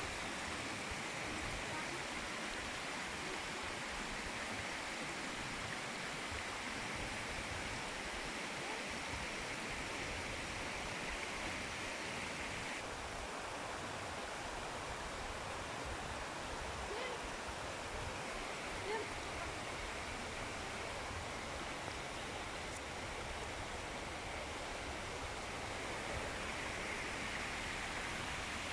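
Small woodland stream rippling and splashing over rocks in a steady rush of water. The rush is a little softer through the middle and picks up again near the end.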